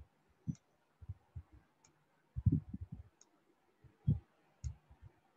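Faint, irregular taps and clicks of a stylus on a pen tablet during handwriting, a dozen or so dull knocks with a few sharp high ticks among them.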